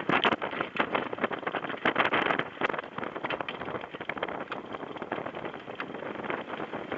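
Wind buffeting the microphone on a Hobie catamaran under sail: a rough rushing noise full of rapid crackles, strongest in the first two and a half seconds and easing after.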